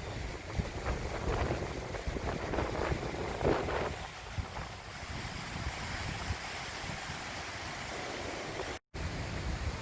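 Gusty wind from the tail of Hurricane Laura, rushing and buffeting the microphone in waves. The sound cuts out for an instant about a second before the end.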